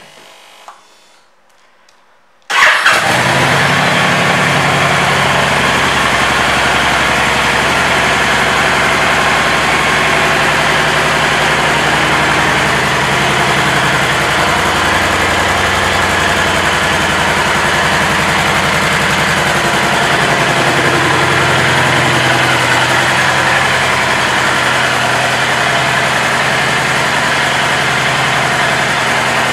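Honda Stateline's 1312 cc V-twin starting up about two and a half seconds in, louder for a moment as it catches, then idling steadily.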